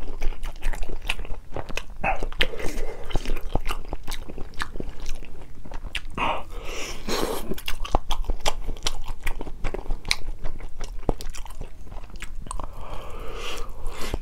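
Close-up chewing and biting of a thick slice of Spam with a crisp outside: a run of short, wet mouth clicks, with denser spells of chewing about six seconds in and near the end.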